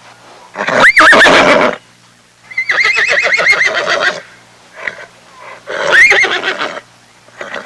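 Horse whinnying three times, the middle call the longest with a fast quavering pitch.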